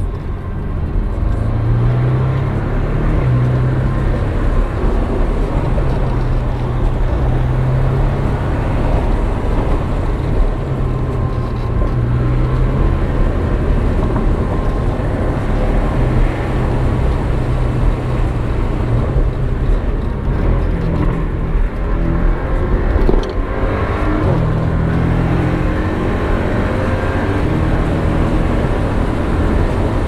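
Porsche 718's engine heard from inside the cabin while driving, with heavy road and tyre noise; the engine note comes and goes as the throttle is worked, rising again at several points.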